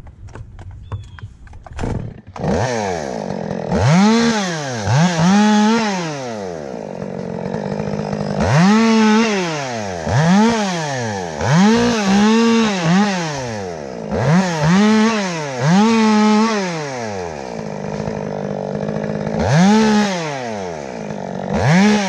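Two-stroke top-handle chainsaw run in repeated bursts of full throttle, about a dozen in all, each rising fast to full speed and dropping back toward idle. The first burst comes about two seconds in.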